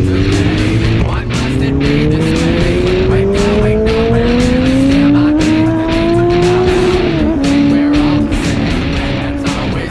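Four-cylinder motorcycle engine accelerating hard, its pitch climbing steadily for about six seconds. The pitch drops sharply at a gear change about seven seconds in, then holds steady.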